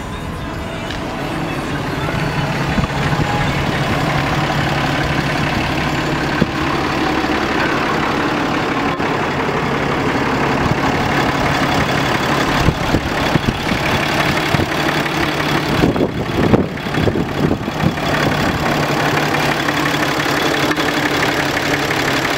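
2016 Ram 3500's 6.7-litre Cummins turbo diesel idling steadily, with a run of irregular bumps and knocks in the second half.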